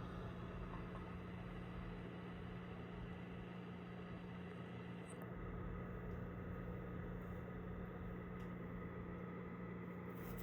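A steady low machine hum over a background hiss, with no change through the stretch.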